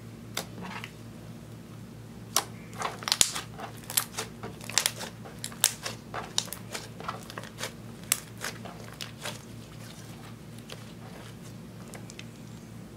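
Hands kneading and pressing sticky clear slime mixed with eyeshadow, giving a run of sharp pops and clicks as trapped air squelches out. The pops come thickly from about two seconds in to about nine seconds, then thin out to a few faint clicks as the slime is stretched.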